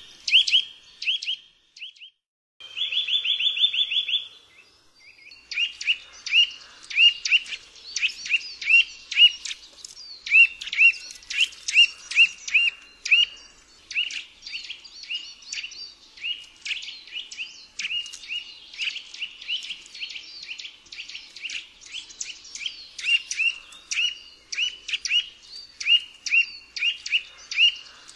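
Eurasian nuthatch calling. A run of short, clear whistled notes breaks into a fast trill a few seconds in, then goes on as a long series of separate notes, about two or three a second. Fainter chirps sound behind them.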